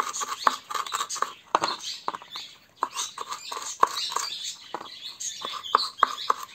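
Kitchen knife chopping fresh ginger on a wooden chopping board: quick, uneven taps of the blade on the board, about two to three a second, with the scrape of the knife through the pieces between them.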